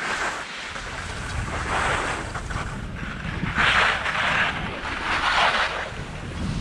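Wind rumbling on the microphone while skiing fast downhill, with edges sliding and carving across packed snow in hissing surges; the strongest surges come about three and a half seconds in and again just past five seconds.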